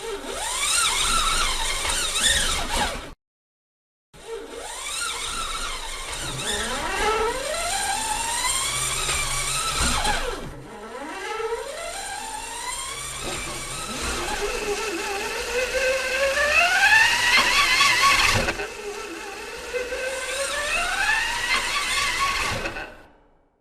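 Electric car accelerating, its motor whine rising steeply in pitch and dropping back again and again. A short burst, a moment of silence, then a longer run.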